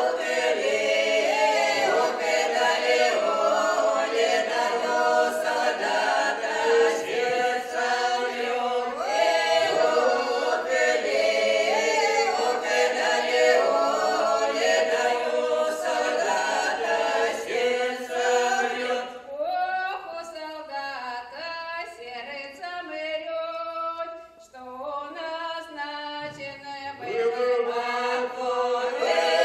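Russian folk song sung a cappella by a small ensemble of women's voices with one man, in several parts. About 19 seconds in the sound thins and drops in level for several seconds, then the full group comes back in near the end.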